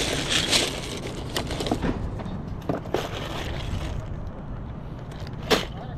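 Plastic toys being handled and rummaged in a cardboard box. A plastic bag crinkles in the first second, scattered light clicks follow, and there is a sharp clack about five and a half seconds in.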